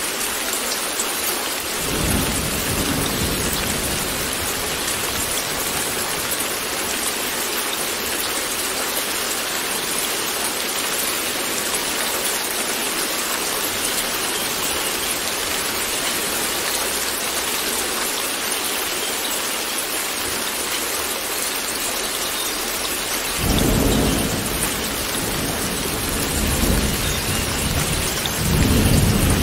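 Steady rain with rolling thunder. A low rumble starts about two seconds in and fades away, and more rumbles come near the end.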